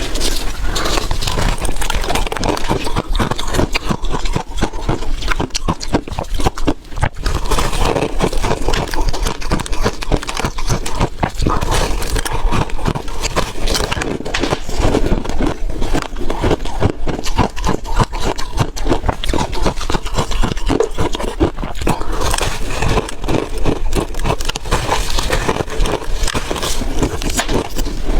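Refrozen ice cake being crunched close up: a dense, continuous run of sharp cracks and crackles with no pauses.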